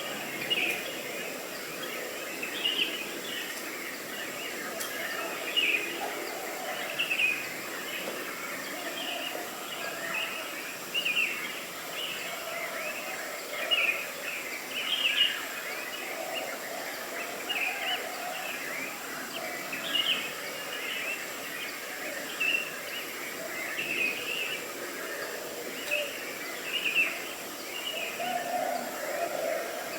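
Small birds chirping over a steady outdoor hiss, with short high calls repeated throughout and a few louder ones every few seconds.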